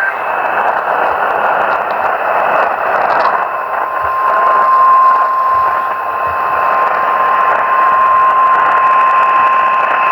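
Weather radio static hiss, then about three and a half seconds in the steady 1050 Hz warning alarm tone starts and holds, signalling that a new warning is about to be read.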